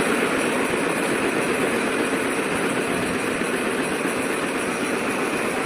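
Iron wire bending machine running, a steady, unbroken mechanical noise.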